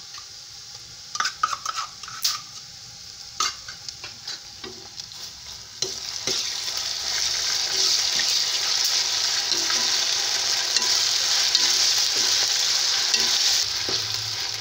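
Ginger-garlic paste going into browned onions in hot oil in a kadhai: a few knocks and scrapes of a spoon against the pan, then about six seconds in a loud, steady sizzle of frying comes in as the mixture is stirred.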